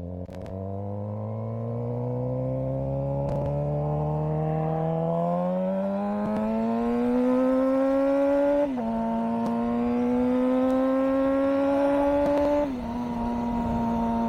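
Suzuki GSX-R600 inline-four through a CS Racing full exhaust with the dB killer removed, accelerating: the engine note climbs steadily, drops sharply twice as it shifts up, then holds steady.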